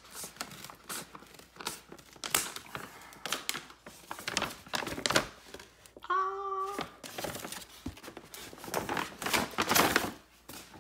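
Scissors cutting through a paper mailer, then the paper crinkling and rustling with many sharp crackles as it is pulled open and a cardboard box is slid out.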